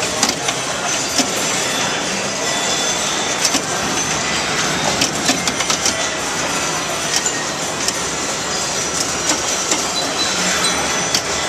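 Steady clatter of electromechanical pinball machines: irregular sharp clicks of relays, bumpers and flippers over a dense, continuous background hubbub of a busy hall.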